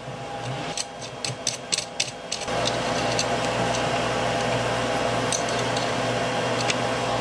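Light metal clicks and taps of a power-supply bracket and its screws against a metal chassis rail as the bracket is positioned and a hex key starts the screws. A steady hum comes in about two and a half seconds in and carries on under the clicks.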